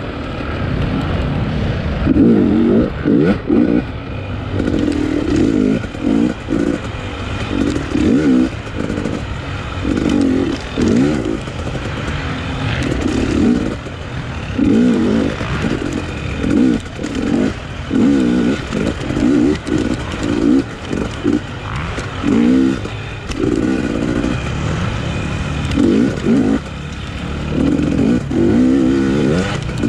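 Off-road racing motorcycle in the 250 class, recorded on board from the rider's point of view: the engine revs up and falls back again and again as the throttle is opened and shut, a surge every second or two.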